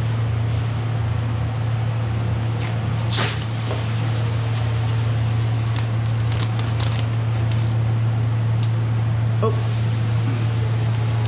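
Steady low hum of a ventilation fan, with plastic sheeting crinkling and masking tape being pulled and pressed down by hand; one sharp rip about three seconds in and a few shorter crackles later.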